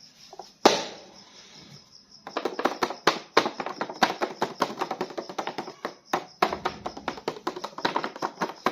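Rapid, dense clicking and crackling, like something being handled and tapped, after one sharp snap about a second in.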